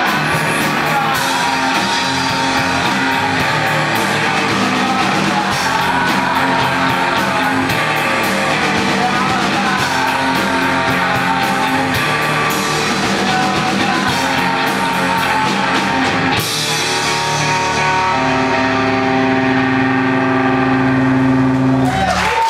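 Rock band playing with guitar and singing; about sixteen seconds in the drums stop and the band holds a long final chord.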